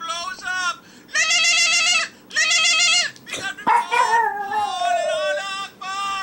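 Pug howling in a series of long, wavering cries, one sliding down in pitch near the middle, set off by a phone ringtone.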